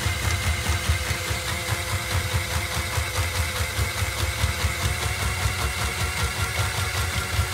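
Ryobi 18-Volt ONE+ P4001 cordless drain auger motor running in reverse, steadily turning the cable drum as the cable is drawn back out of the drain, with a low hum and rapid even pulsing.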